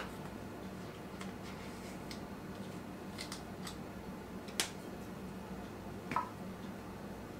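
Faint clicks and taps of a metal measuring spoon and spice jar as seasoning is measured into a glass dish of marinade, the sharpest tap about four and a half seconds in and a light clink about six seconds in, over a steady low hum.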